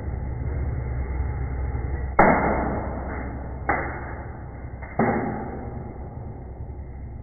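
Three sharp pops, about two, three and a half and five seconds in, each followed by a rush of fire that dies away over about a second, as something crushed under a hydraulic press bursts into flame. A steady low hum runs underneath.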